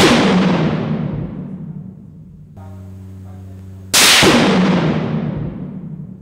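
Two 5.56 mm rifle shots from a clamped test barrel, about four seconds apart, each with a long reverberating tail in an indoor range: the first fades out early on and the second rings out for about two seconds. A steady low hum is heard between the shots.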